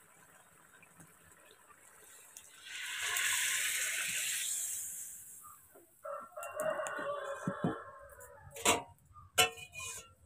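A rooster crowing for about two seconds, after a few seconds of steady hiss. Near the end come two sharp knocks as cooking pots are handled.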